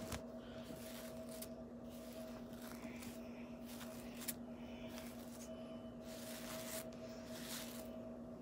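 Hairbrush pulled through wet, knotted hair: soft scratchy strokes, irregular and roughly one a second.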